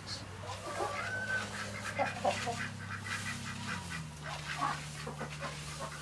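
Stall rake scraping and spreading pine pellet bedding over a dirt floor in repeated short strokes, with poultry calling now and then. A steady low hum sits underneath.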